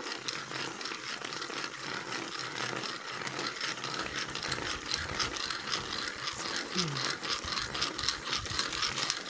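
Dry leaf litter and soil crackling and rustling as a hand digs into a crab burrow, a dense run of fine rapid ticks.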